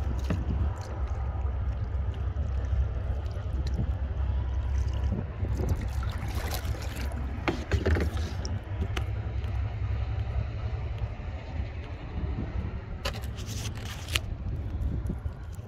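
Kayak being paddled: paddle strokes dipping in the water, with a few sharp knocks and scrapes against the kayak about six to eight seconds in and again near the end, over a steady low rumble.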